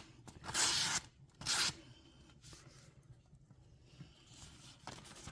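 BKA01 OTool pocket knife blade slicing through material in a cutting test: two short slicing strokes in the first two seconds, then quiet.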